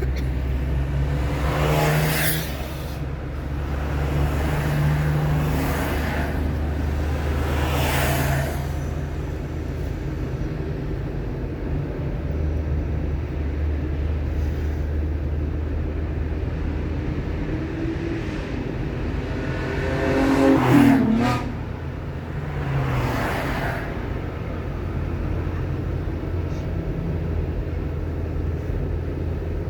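A car driving on a road: steady engine and tyre noise, with the engine note shifting now and then. Other vehicles pass by several times, the loudest a little past the two-thirds mark with a falling pitch.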